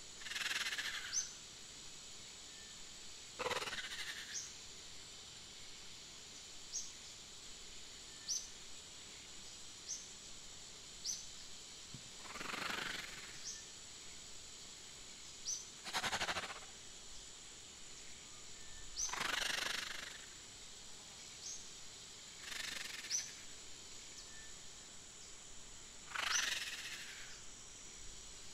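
Nature ambience: a steady high insect-like hiss with short, high chirps repeating every second or two. About every three to four seconds a swishing rustle comes, about a second long and falling in pitch.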